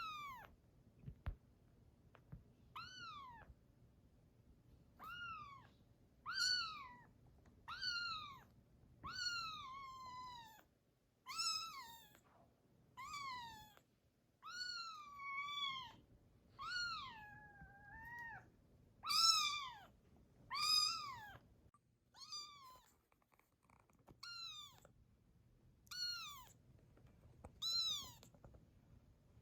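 A days-old kitten mewing over and over, high and thin, about one cry every second or two. Several cries are drawn out, with the pitch falling and wavering.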